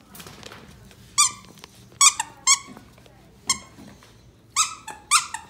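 About six short, sharp, high-pitched squeaks, coming at irregular intervals roughly a second apart.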